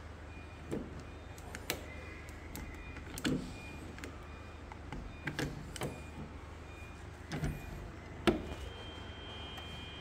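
Hand pop-rivet gun worked against a metal door's edge: a string of separate clicks and knocks from the squeezed handles and the metal. The loudest is a sharp snap about eight seconds in.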